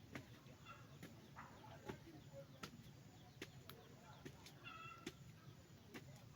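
Faint scattered clicks and taps, with a short high animal call about five seconds in.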